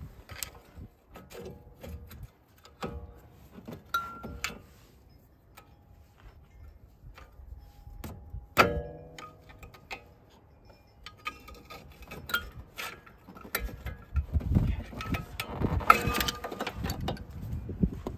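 Metal hand tools clicking and clinking against a truck's front brake caliper and rotor, with one sharp ringing metal clank a little before halfway. In the last few seconds there is denser scraping and knocking as the caliper is pried off the rotor.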